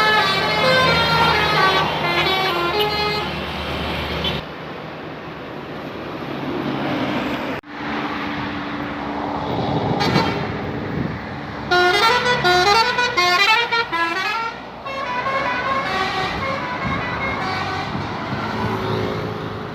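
Bus 'telolet basuri' musical air horns playing fast tunes of stepped notes. One tune ends about four seconds in and another plays from about twelve to fifteen seconds in, with bus engine and traffic noise between them.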